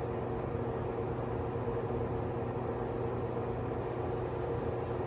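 Steady low hum and rumble with a few held tones, unchanging throughout.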